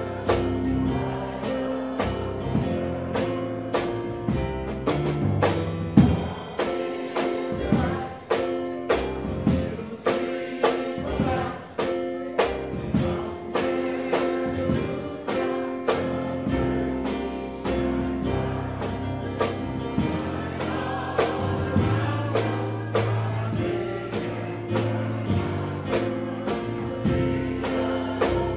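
Gospel music: a choir singing over held instrumental chords, with a drum beat keeping a steady pulse.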